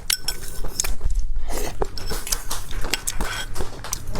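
Eating sounds: utensils clicking and clinking against a dish, with chewing, in a run of short sharp taps.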